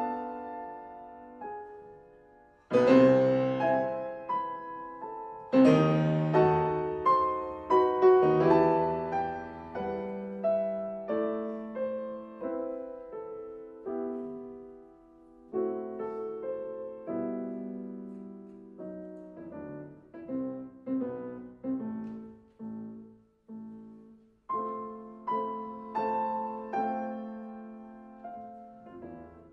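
Two pianos playing classical music. Loud struck chords come about three, six and eight seconds in, each ringing away, followed by a quieter passage of shorter notes.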